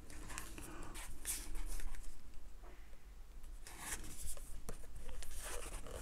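Hands handling a Maono PD100X microphone: irregular rubbing, scraping and rustling against its body and foam cover, with a few short scratchy bursts.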